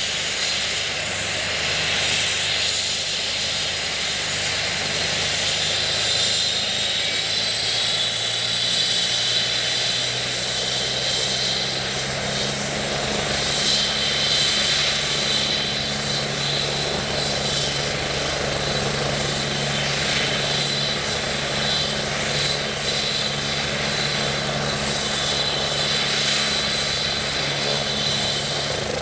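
Medevac helicopter running on the ground with its main rotor turning ahead of takeoff. A steady high turbine whine sits over the engine and rotor noise, and a deeper hum strengthens about twelve seconds in.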